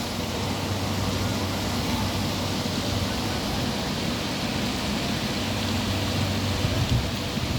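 Heavy rain falling, a steady even hiss, with a low steady hum underneath.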